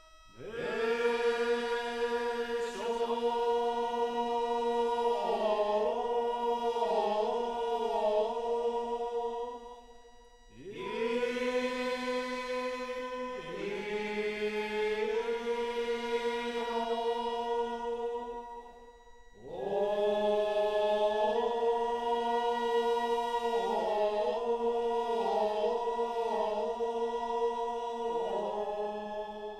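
Slow vocal chanting in three long drawn-out phrases. Each rises from low into a held note, wavers through a few ornamented steps, and pauses briefly before the next.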